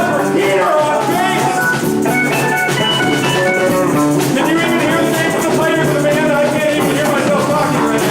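A live band playing upbeat dance music with drums and melodic instruments.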